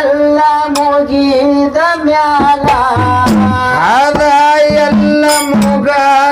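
A man sings a Kannada dollin pada (folk song) with a wavering, melismatic voice. Drum strokes and steady held notes that change in steps accompany him.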